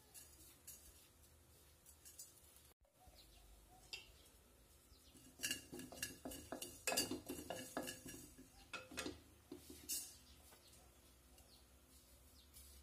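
Wooden spatula stirring dry mustard and cumin seeds in a non-stick pot, making light scrapes and clicks that come thickest in the middle; the spices are being dry-roasted without oil.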